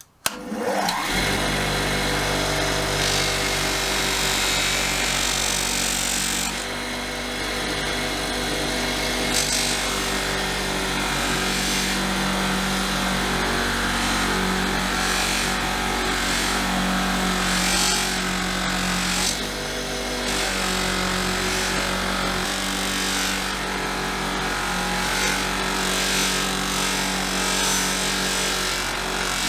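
Electric power tool switched on, its motor spinning up with a rising whine in the first second, then running steadily with a dense, scratchy hiss as it abrades the rusted steel of the tool.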